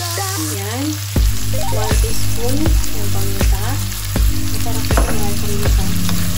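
Bacon lardons, snow peas and carrots sizzling in a nonstick wok as a wooden spoon stirs them, over background music with a steady beat.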